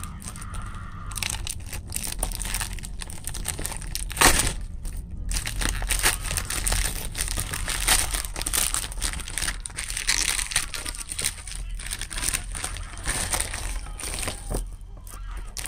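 Plastic postal mailer bag being torn open by hand: continuous crinkling and crackling of the plastic, with one sharper, louder crack about four seconds in.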